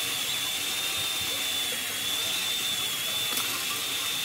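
Worx WG368E 40V cordless electric chainsaw running with a steady high whine, its pitch wavering slightly.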